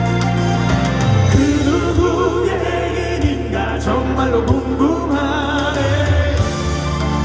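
Live band music with a steady bass line, and several voices singing long held notes with vibrato through the middle of the stretch.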